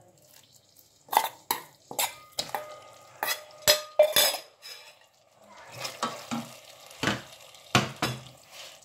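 Raw chicken pieces tipped from a stainless steel bowl into a steel pot: a run of sharp metal clacks, a couple with a brief ringing tone, as the bowl is scraped and knocked against the pot. Then a wooden spoon stirs the chicken through thick coconut cream and curry paste, with a few softer knocks.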